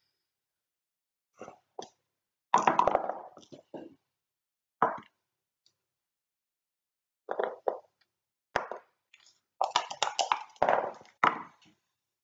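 Backgammon pieces and dice on a board: checkers clicked down in short groups of taps, and dice clattering as they are thrown and roll. The longest and densest clatter comes near the end.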